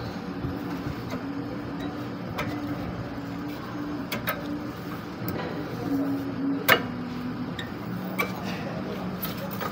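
Scattered metallic clicks and clinks of new disc brake pads being seated by hand in the caliper bracket against the rotor, the sharpest a little past halfway, over a steady mechanical hum.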